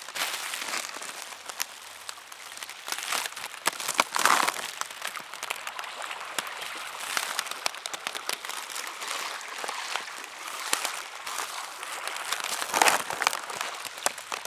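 Steady rain pattering, full of crackling ticks from drops striking close to the microphone, with two louder bursts, one about four seconds in and one near the end.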